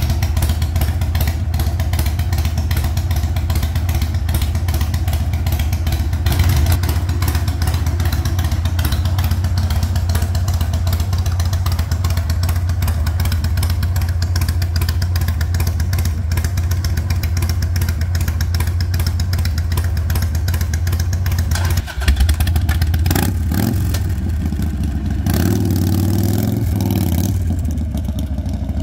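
A Harley-Davidson Sportster 1200's air-cooled V-twin idling steadily through its exhaust, then revved several times near the end.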